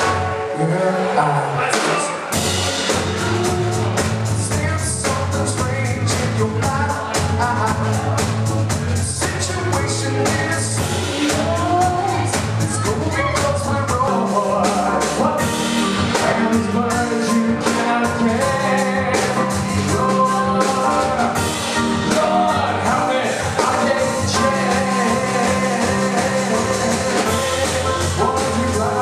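Live band playing an instrumental section with drum kit, bass and guitar, a steady beat throughout; the bass line shifts to a new pattern about halfway through.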